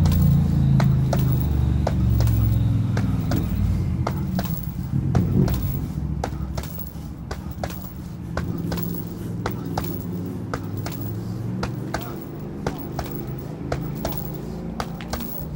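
Boxing gloves striking a heavy punching bag in a quick, uneven run of thuds, about two to three a second, over a low rumble that drops away after about six seconds.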